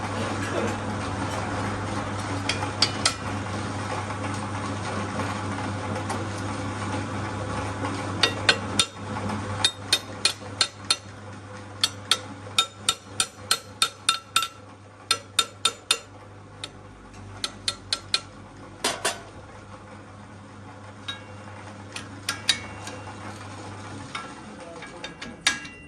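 Steel being struck with a hammer: runs of sharp metallic blows, about two or three a second in the middle stretch, over a steady machine hum that stops near the end.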